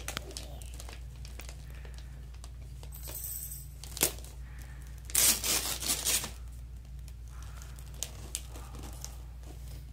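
Wrapping paper being torn and crinkled off a present by hand, in a few short rips, the loudest and longest about five to six seconds in.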